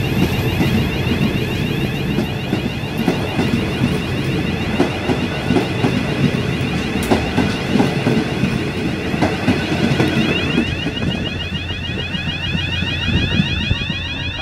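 H set passenger carriages rolling past close by: a steady rumble of wheels on rail with irregular clunks over the rail joints. The sound eases a little near the end as the last carriage draws away.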